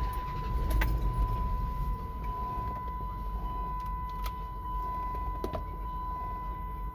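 A steady, high-pitched electronic beep held for about seven seconds, cutting off suddenly near the end, over a low rumble with a few sharp clicks.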